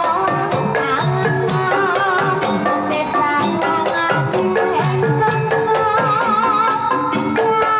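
Banyumasan gamelan playing a tayub piece: kendang hand-drum strokes and the ringing tones of small bronze gong-kettles struck with a padded mallet, under a sinden's wavering sung melody.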